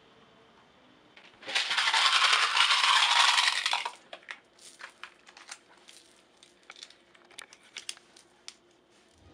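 Hand rummaging through cloth: a loud rustling burst of about two seconds, then scattered small clicks and rustles.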